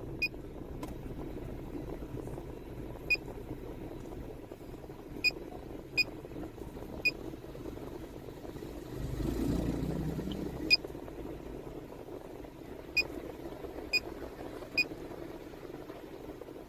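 Key beeps from a handheld OBDEMOTO MST-601PRO motorcycle diagnostic scanner as its buttons are pressed to move through its menus: about nine short, high beeps at irregular intervals. Under them runs a steady low hum.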